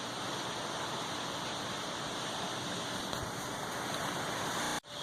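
Steady rushing noise like running water, even throughout, broken off abruptly by a brief dropout near the end.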